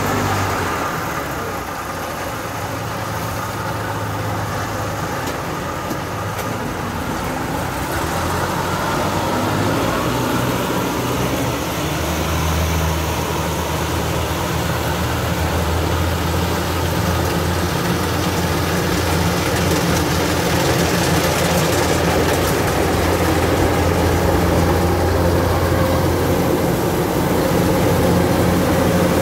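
Kubota DC-105X combine harvester's diesel engine and threshing machinery running steadily, growing gradually louder as the machine comes close.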